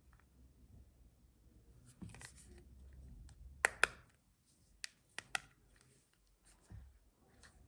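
Small hand tools and phone parts being handled, giving light scattered clicks and taps. The loudest are a close pair near four seconds in, with a few more about a second later.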